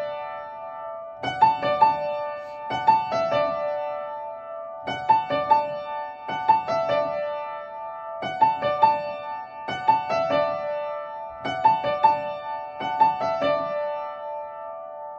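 Upright piano playing a short motif over and over, a train or station melody played by ear, each group of notes struck about every second and a half. The last group rings out and fades near the end.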